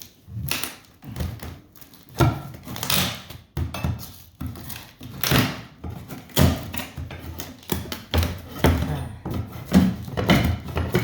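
Irregular wooden thunks and knocks with scraping, as hardwood floorboards are worked loose and handled with tools.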